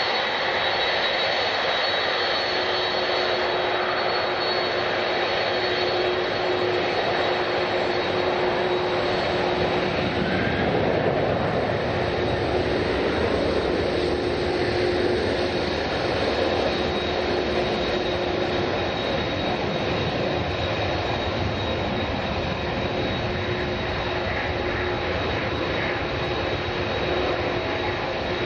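Jet airliner engines running: a steady rushing noise with a thin high whine on top, swelling a little in the middle.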